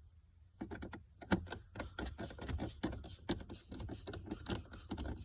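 Quick, irregular clicking and tapping of a hand tool working the small screws out of the plastic cabin air filter cover behind a car's glove box, starting about half a second in.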